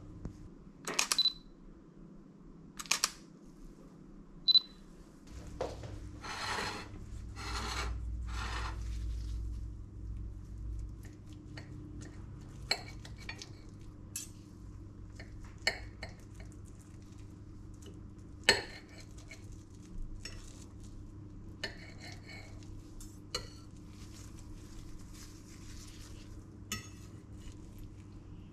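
Knife and fork clinking and scraping on a ceramic plate as a mushroom omelette is cut, in scattered separate clicks. A few louder knocks and a rough rustling stretch come in the first several seconds.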